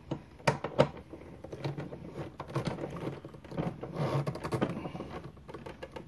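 Irregular small metal clicks and taps of an 11 mm socket on a hand driver tightening the nut on a motorcycle tour-pack lock cylinder, with two sharper clicks about half a second and nearly a second in.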